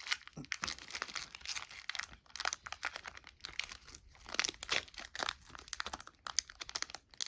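Foil wrapper of a Pokémon trading card booster pack crinkling and crackling as it is handled and the cards are pulled out, in irregular bursts.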